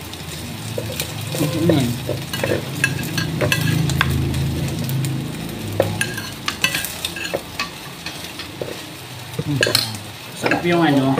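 Slotted wooden spatula stirring and tossing garlic fried rice in a hot frying pan, with irregular scrapes and taps against the pan over a steady sizzle of frying, as oyster sauce is mixed through.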